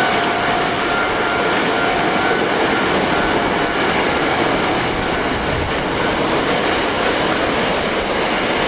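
Hankyu electric train running past close by: a loud, steady rumble of wheels on the rails, with a faint steady whine in the first few seconds that fades out.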